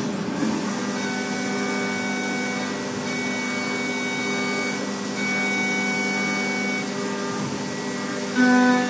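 Haas DT-1 CNC machine milling 6061 aluminum: a steady machine whine made of several tones over a hiss, with a high tone that cuts in and out in stretches of a second or two. It gets louder briefly near the end.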